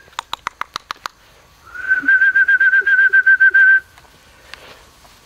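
A trilling whistle, one steady pitch with a fast warble, blown to call puppies to come. It stops at the start, gives way to a quick run of about seven sharp clicks within the first second, then sounds again for about two seconds and breaks off.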